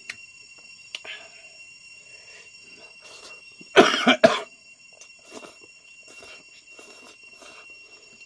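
A man coughing, a quick burst of about three coughs near the middle, while eating spicy noodles and rice by hand. Soft mouth and chewing sounds otherwise, over a steady high-pitched background tone.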